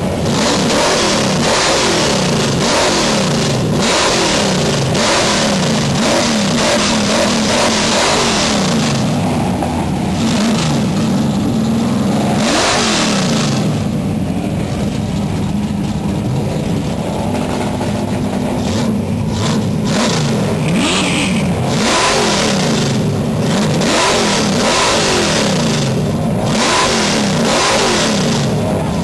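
1969 Plymouth Road Runner's 440 Six Pack big-block V8 being revved again and again through its dual exhaust, the engine speed climbing and dropping back in quick succession, roughly once a second.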